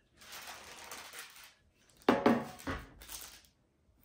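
Metal baking tray being handled and set down on a wooden table: a sharp clatter with a short ring about two seconds in, with noisy handling sounds before and after it.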